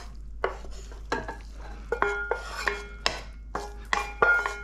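Wooden spoon scraping and knocking against a steel wok as noodles are pushed out of the tilted wok into a bowl, about two knocks a second, several leaving a short ringing tone.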